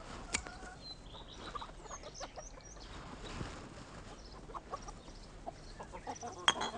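Chickens clucking in short, scattered calls, with a sharp click about half a second in.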